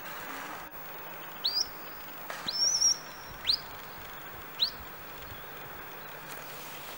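Four sharp, high whistles, each sweeping upward. The second whistle is held on a high note for about half a second.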